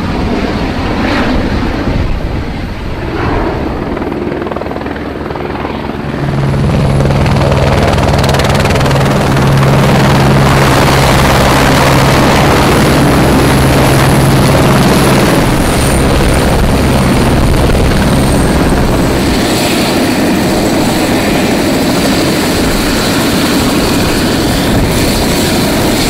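Rescue helicopter's rotor and turbine engine running loudly, with a steady low hum from about six seconds in that fades out near twenty seconds.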